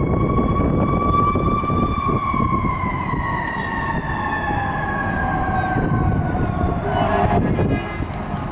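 Fire engine siren sounding over the truck's engine and road rumble; its pitch climbs slightly, then slowly winds down over several seconds. Near the end the siren fades and the sound drops away as the truck moves off.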